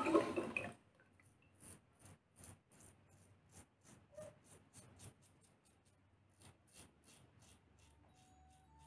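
Faint short scraping strokes of a Lord 122 double-edge safety razor cutting stubble on the upper lip and chin, a couple of strokes a second. Running water cuts off in the first second.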